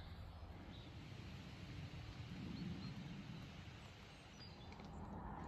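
Faint outdoor ambience: a low, steady wind rumble on the microphone.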